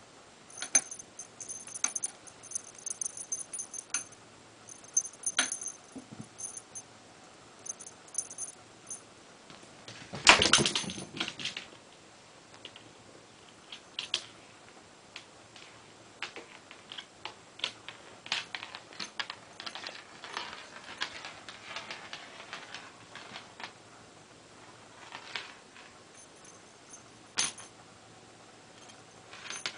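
A small bell on a string cat toy jingling in short, quick clusters as a kitten bats at it, with one loud knock about ten seconds in and scattered light clicks and rattles afterwards.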